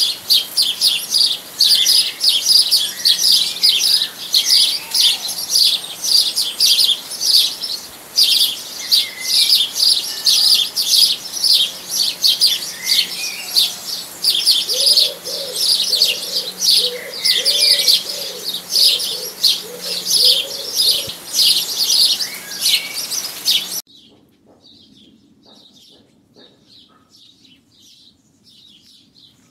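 A dense chorus of small birds chirping rapidly, with a pigeon giving a string of about seven low coos midway. About 24 s in it cuts abruptly to much fainter, sparser chirping.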